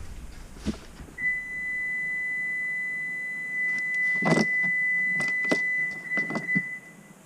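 A steady, high-pitched electronic beep tone held for about six seconds, with a few sharp clicks and knocks from parts being handled around the middle.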